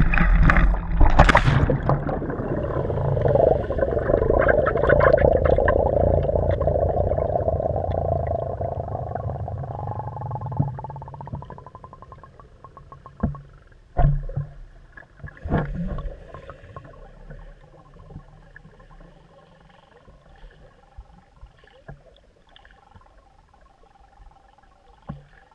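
A bicycle carrying a GoPro hits the lake with a splash about a second in, then sinks: a loud muffled underwater rush and bubbling that fades away over about ten seconds. A few dull knocks follow around the middle, and the rest is faint underwater quiet.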